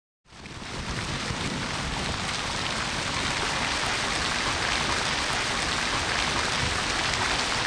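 Fountain water splashing steadily, a dense even hiss that fades in within the first second.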